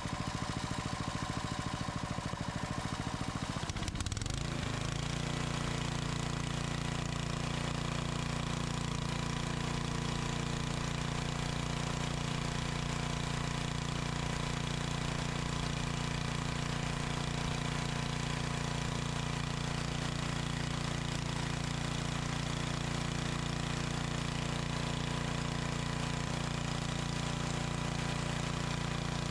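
Briggs & Stratton 8 HP I/C single-cylinder engine on a log splitter, running on a newly replaced carburetor. It runs unevenly at first; about four seconds in its pitch shifts and it settles into a steady, even run as the mixture screw is backed out to smooth it.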